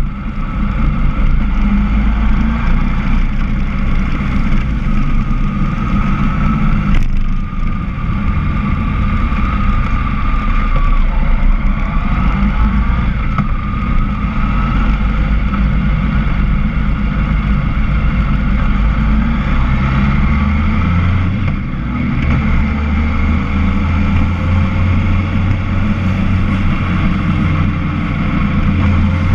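Motorcycle riding downhill through bends: a steady low rumble of engine and wind on the mounted camera, with the engine note gliding gently up and down.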